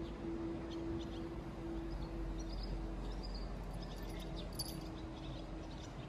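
Steady outdoor background with a low rumble and a faint hum tone throughout. A few faint high ticks are scattered over it, with a brief tinkle about four and a half seconds in.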